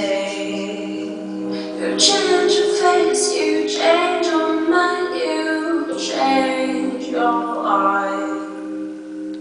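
Background music: a song with a woman singing over sustained chords.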